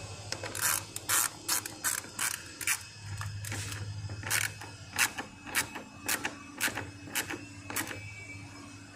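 Hand ratchet wrench clicking in short bursts, about two a second, as it is swung back and forth to run a bolt in.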